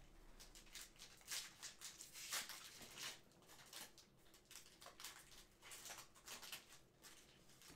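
Faint, irregular crinkling and rustling of a trading card pack being torn open and its cards handled, as a series of short crackles that are busiest in the first few seconds.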